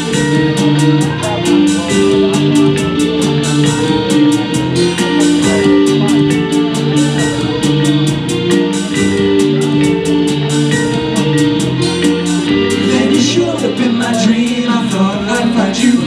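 A live new-wave synth band playing: a drum-machine beat with even hi-hat ticks about four a second, held synth chords, electric bass and guitar. A voice comes in singing near the end.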